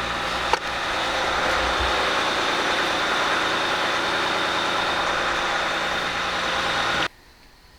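Ram 1500's 3.0-litre EcoDiesel V6 turbodiesel idling steadily, with a small click about half a second in. The sound stops abruptly near the end.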